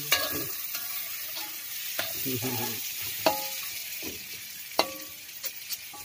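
Chopped straw mushrooms with chili and tomato frying in a wok with a steady sizzle, stirred with a metal spatula that scrapes and clanks sharply against the pan several times, a few clanks briefly ringing.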